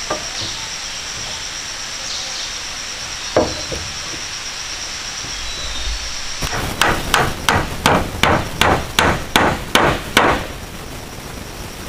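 Hammer blows on timber: a single knock a few seconds in, then a run of about eleven quick, evenly spaced blows, about three a second, from about halfway through.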